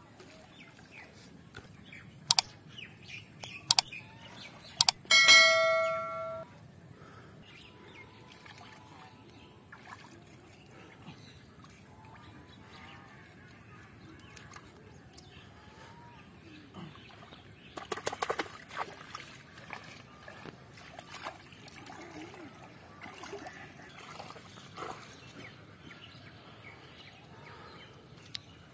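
Faint outdoor background, broken by a few sharp clicks and a short bell-like ringing tone about five seconds in, then a brief burst of splashing around eighteen seconds in as hands work in shallow muddy pond water.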